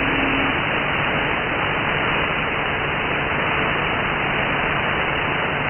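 Radio static: the steady hiss of an open CB band through a software-defined radio receiver, with no station transmitting. A short low tone fades out in the first half second.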